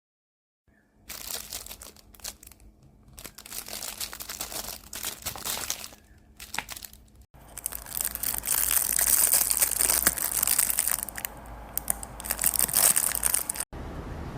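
Plastic packaging crinkling and rustling as it is handled, in irregular crackles. It breaks off sharply about seven seconds in, comes back louder, and cuts off again near the end.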